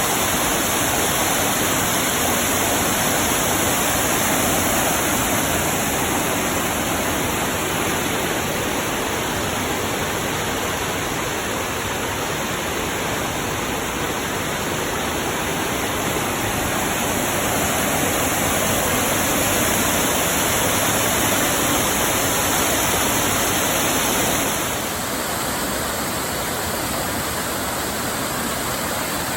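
Waterfall plunging into its pool, a steady, loud rushing. About 25 seconds in it turns slightly quieter and duller.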